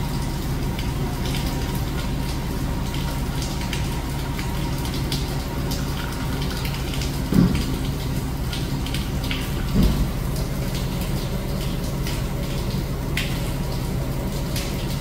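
Water from a garden hose running steadily into a Temsa coach's restroom holding tank as it fills, with a steady low hum underneath. Two dull thumps a couple of seconds apart come around the middle.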